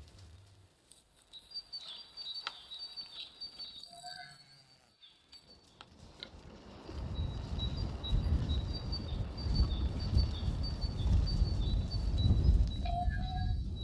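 A songbird singing rapid, repeated high chirping notes, with two brief lower calls. A loud low rumble comes in about halfway and then dominates.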